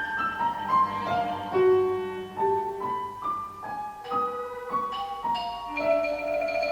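Chamber music from a quintet: a piano plays a melodic line of separate struck notes, about two a second.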